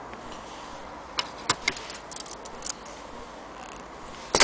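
Light metallic clicks and ticks from hands handling an antique Willcox & Gibbs sewing machine around its needle and presser foot. A few separate clicks come first, then a quick run of small ticks, and one sharper, louder click near the end.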